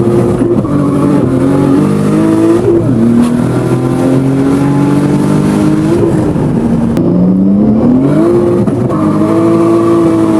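Inline-six 2JZ engine in a swapped Mazda RX-8 pulling hard. The revs climb and drop several times, falling sharply about three and six seconds in.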